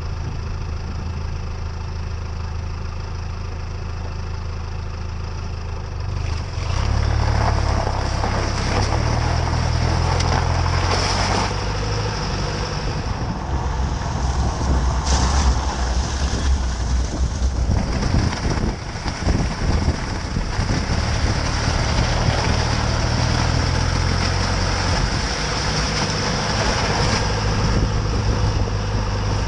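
Vehicle engine running steadily, heard from underneath the vehicle; about six seconds in it pulls away and the tires run over a snowy, slushy road, bringing in louder, rushing road noise with the engine rumbling underneath.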